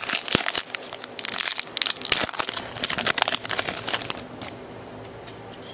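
Plastic wrapper of a hockey trading-card pack being torn open and crinkled as the cards are pulled out, a dense crackling that dies down about four seconds in.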